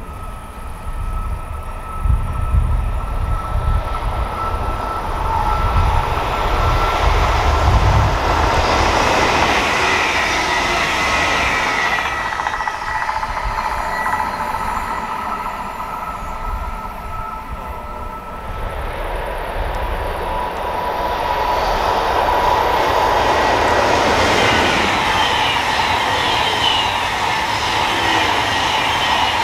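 An ICE high-speed electric train passing at speed along the mainline: a rush of wheel and rail noise with a high whine over it, swelling again in the last third as the train goes by.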